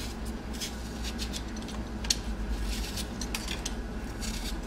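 Vegetable peeler scraping the skin off a raw potato in quick, irregular strokes, with one sharper click about two seconds in, over a steady low hum.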